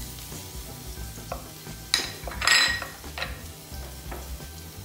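Crushed garlic sizzling in hot olive oil in a nonstick pan, with a few sharp clinks of a spoon and dish. The loudest is a ringing clink about two and a half seconds in.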